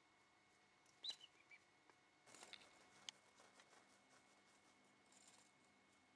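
Fledgling blue tit giving one short, high call that drops in pitch, then about a second later a brief flutter of wings as it flies up onto a wooden rail, followed by a small tick. All faint.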